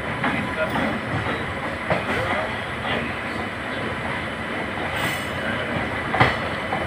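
Passenger trains running side by side, heard from the open door of a moving ICF coach: a steady rolling rumble with irregular wheel knocks over rail joints and points, the loudest about six seconds in. A WAP-7 electric locomotive hauling an LHB express runs alongside on the next track.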